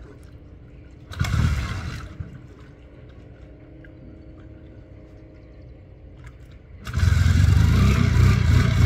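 Motorcycle engine starting: a short burst of engine noise about a second in, then about seven seconds in it catches and runs loudly and steadily.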